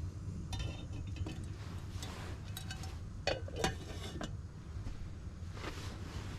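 A run of light clinks and knocks of small hard objects being handled, the two loudest just past the middle, over a steady low rumble of wind.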